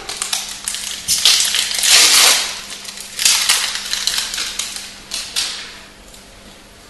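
Foil wrapper of a Magic: The Gathering booster pack crinkling and tearing as it is ripped open, in a run of loud crackling bursts, loudest in the first couple of seconds and dying away about a second before the end.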